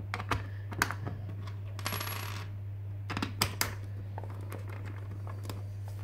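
Network-socket plastic faceplate being pressed onto its back box and small screws set into its holes: scattered light clicks and metallic clinks, with a short scraping rustle about two seconds in. A steady low hum runs underneath.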